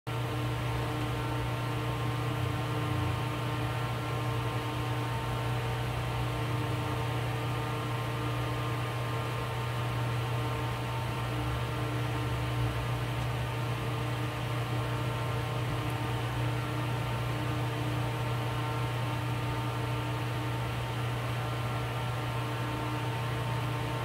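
Steady electrical-type hum under a layer of hiss, with several constant tones and no change in level.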